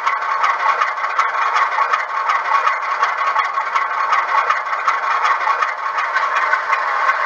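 Model Alco RS-11 diesel locomotive's sound decoder playing a steady engine idle with a rattling texture and no deep bass.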